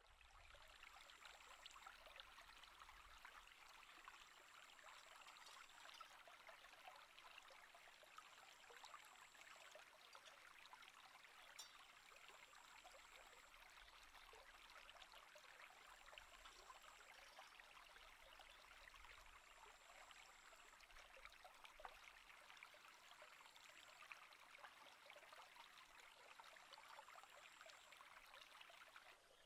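Faint, steady rush of a shallow stream running over rocks, with a thin high tone that comes and goes every few seconds.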